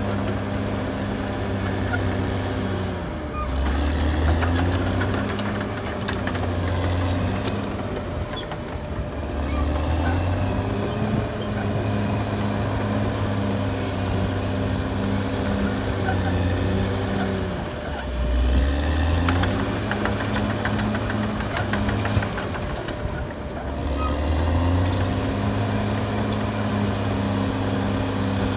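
Caterpillar D6R XL bulldozer's diesel engine running steadily, its engine note sagging lower and recovering four times, with intermittent metallic clatter.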